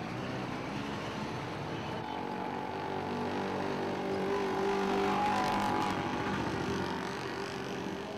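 Street traffic, with a vehicle engine getting louder to a peak about five seconds in and then fading as it passes.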